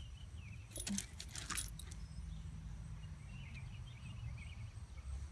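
Metal tags on a dog's collar jingling in two short bursts about one and one and a half seconds in, as the dog moves on gravel, over a low steady rumble.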